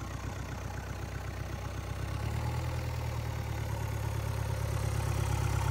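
Isuzu 4KH1 four-cylinder turbodiesel idling on a test stand, a steady low run that gets a little louder about two seconds in. It runs smooth and even, taken as the sign of a healthy, little-used engine.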